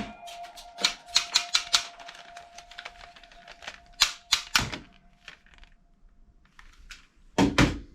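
Rapid sharp plastic clicking from a toy gun's mechanism being worked, about five clicks a second for the first two seconds, then a few scattered louder clicks, over a faint steady tone.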